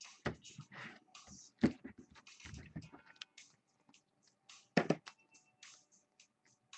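Scattered clicks, taps and light rustles of hands working at a desk, with two louder knocks, about one and a half and five seconds in.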